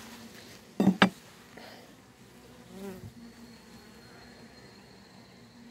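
Honeybees buzzing steadily around an opened hive. About a second in come two sharp cracks, the loudest sounds, as a hive tool pries a frame loose.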